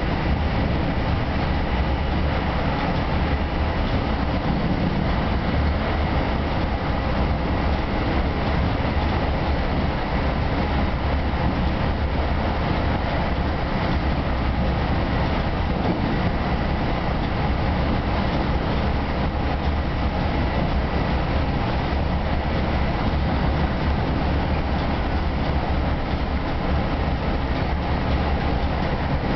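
Steady rumble and rail noise of a bi-level commuter coach running at speed, heard from inside the car, with a faint steady whine above it.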